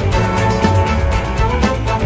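Background music with a steady drum beat over sustained bass and melody notes.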